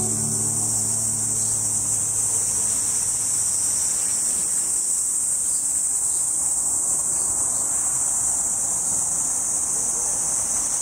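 A steady chorus of insects shrilling on one high pitch, unbroken throughout, with the last low note of background music dying away in the first few seconds.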